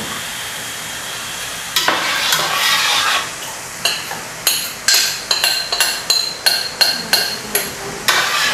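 Spatula stirring and scraping cornstarch and water in a stainless-steel pot. After a steady hiss, quick scraping strokes begin about two seconds in, roughly two a second.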